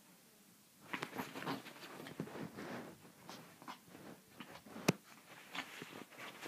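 Chihuahua scrambling and rolling on a bed: irregular rustling and scratching of the duvet and pillow under its paws and body, with one sharp click about five seconds in.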